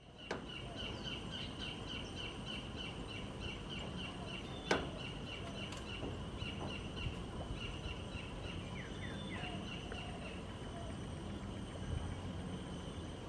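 A wild bird calling a long series of short high notes, about three or four a second, which stops near the end, over steady low background noise. There is a single sharp click about five seconds in.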